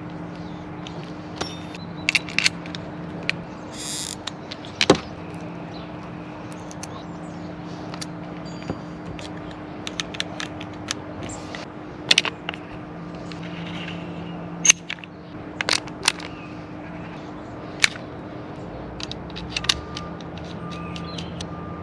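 Scattered sharp clicks and knocks, some in quick clusters, over a steady low hum.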